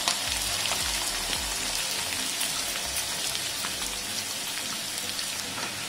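Chopped onion frying in hot oil in a pan: a steady sizzle with small crackles, just after the onion has gone in.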